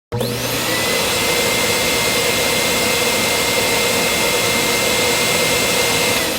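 A loud motor-driven whine over rushing air noise, starting suddenly with a quick rise in pitch, holding steady, then winding down near the end.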